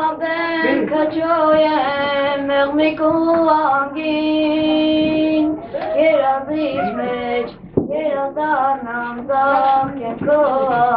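A boy with an unbroken voice singing a song solo, in a melodic line with long held notes, one held for about a second and a half in the middle.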